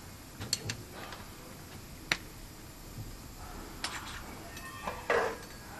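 Scattered sharp metallic clicks and taps from tooling on a car's underbody, a few seconds apart, then a brief louder hiss near the end.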